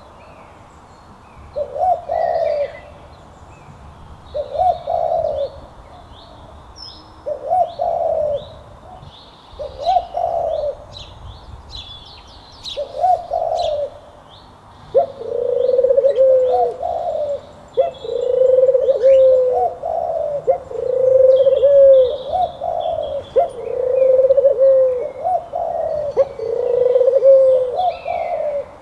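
Doves cooing: separate coos about every two to three seconds, becoming longer, overlapping and nearly continuous about halfway through. Short, high chirps of other birds sound faintly over them.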